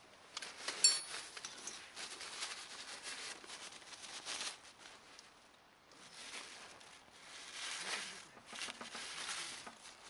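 Paper towels crinkling and rubbing around the inside of an oily cast-iron skillet, pushed about with chopsticks, with small clicks and scrapes. There is a single sharp, ringing clink about a second in.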